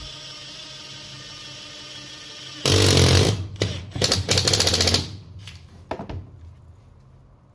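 Makita DTD172 18V brushless cordless impact driver driving a long screw into a block of wood, its hammer mechanism rattling with rapid impacts in bursts from about two and a half seconds in until about five seconds, then one short final burst near six seconds as the screw seats. A steady low hum comes before the driving starts.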